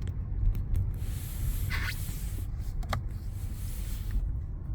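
A car driving slowly, heard from inside the cabin: a steady low engine and road rumble, with a hiss over it from about one second in until near the end, and a short click about three seconds in.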